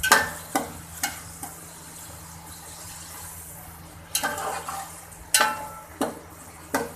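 Chopped tomatoes, green chillies and onions frying in oil in a metal pot, with a steady sizzle. A metal slotted spoon stirs them, clinking and scraping against the pot several times, three times in the first second and again near the end.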